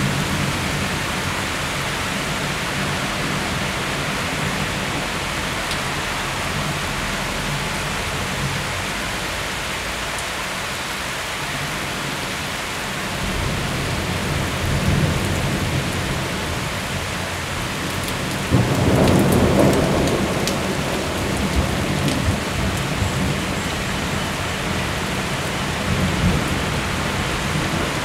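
Heavy summer downpour, rain hissing steadily on pavement and cars, with a loud rumble of thunder about two-thirds of the way through and fainter rolls of thunder before and after it.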